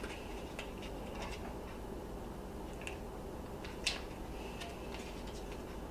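Faint crinkling and small clicks of a small plastic MRE jam packet being handled and opened, with one sharper snap about four seconds in.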